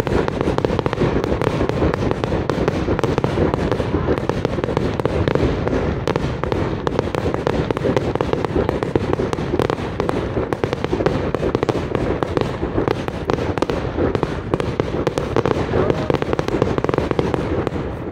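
Large professional fireworks display: a dense, unbroken barrage of shell bursts with continuous crackling, loud throughout.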